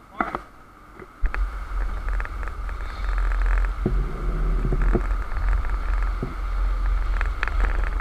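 Tour boat under way: a heavy low rumble sets in suddenly about a second in and runs on over a steady drone, with scattered sharp knocks.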